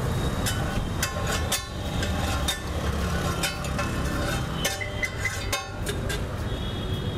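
Steady rumble of street traffic, with scattered short metallic clinks and clatters, a few of them ringing briefly.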